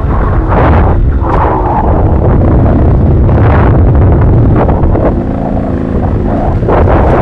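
Wind buffeting the camera microphone over the rumble and rattle of a bike rolling fast down a rough, leaf-covered forest trail, with a short buzz about five seconds in.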